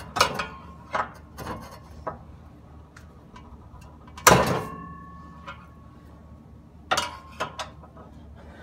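Scattered metal knocks and clanks from work on a car's exhaust pipe. The loudest, about four seconds in, rings on briefly with a metallic tone.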